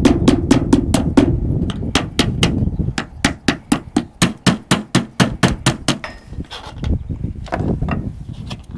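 A mallet tapping rapidly along the edge of an aluminium folded facade panel, about four to five even knocks a second, to seat it so the next panel won't stand off. The run stops about six seconds in, and a few scattered knocks follow.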